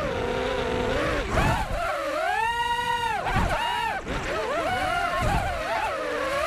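FPV racing quadcopter's brushless motors and propellers whining, recorded by a GoPro mounted on the quad. The pitch rises and falls with the throttle and is held high for about a second in the middle, over a low rumble.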